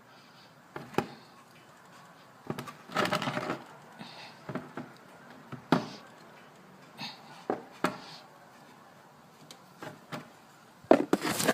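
Scattered knocks and clicks of hands and tools working at a motorcycle's oil drain plug, with a short scraping clatter about three seconds in and a louder cluster of knocks near the end.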